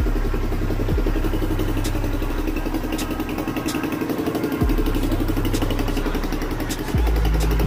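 An engine idling steadily, with the deep, sliding bass notes and sharp claps of a hip-hop beat over it.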